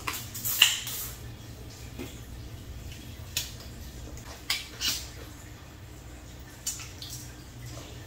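Eating sounds: short wet slurps and sucks at crab and noodles in sour soup, coming every second or so, over a low steady hum.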